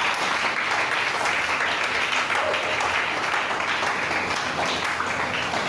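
Congregation applauding steadily, a dense crowd of hand claps.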